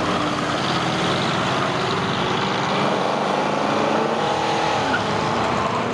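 Several cars driving past on a street, their engines running, with the engine pitch rising and falling as they go by.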